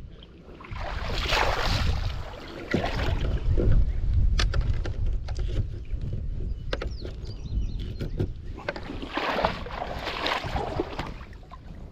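Kayak paddle strokes swishing and splashing through river water in several swells, over a low wind rumble on the microphone, with a few sharp knocks.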